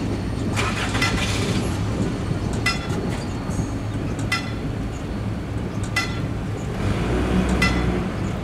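Wigwag railroad crossing signal's bell dinging once about every second and a half, in time with the swinging banner, over a low steady rumble.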